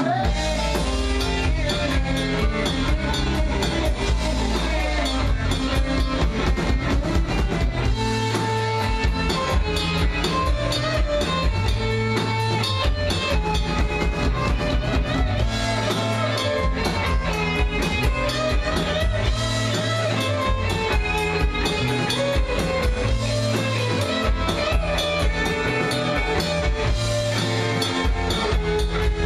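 Live rock band playing an instrumental passage on electric guitars and drum kit, with no singing.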